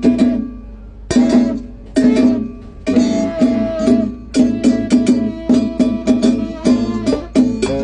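Salsa music: a band plays rhythmic, punctuated chords with percussion, with two brief breaks in the first three seconds.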